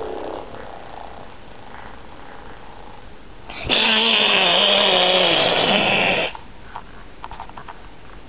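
A child's loud, drawn-out wavering vocal noise right at the microphone, starting a little under four seconds in and lasting about two and a half seconds, its pitch sinking slowly before it cuts off.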